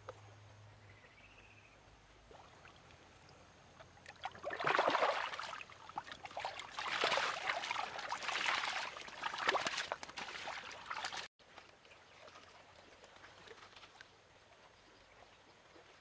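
Water splashing and churning in irregular bursts inside a woven bamboo fish trap set in a shallow stream, starting about four seconds in and cutting off suddenly at about eleven seconds. A faint trickle of water runs before and after.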